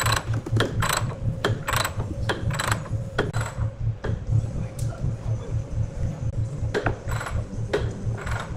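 A large horizontal band sawmill with a low, steady hum under rhythmic metallic clicks as its ratchet lever is worked by hand, about two clicks a second. The clicking pauses midway and starts again near the end.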